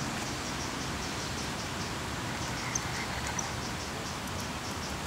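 Outdoor ambience: a steady hiss with faint, evenly repeating high chirps about four a second, typical of insects in the grass, and two short high chirps near the middle.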